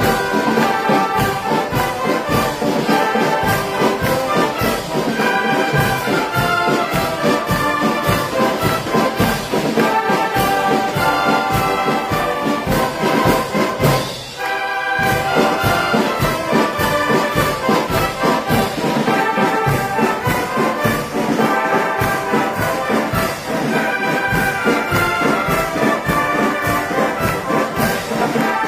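A massed shawm band (Schalmeienkapelle) of about a hundred players playing a tune together in unison, with a steady beat. The music drops briefly about halfway through, then carries on.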